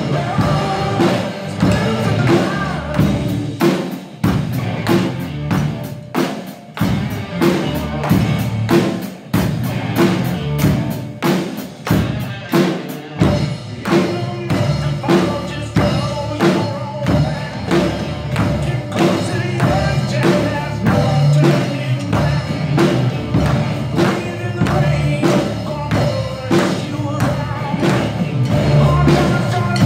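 A small drum kit played in a steady beat with bass drum, snare and cymbal strikes, along with a recorded backing song.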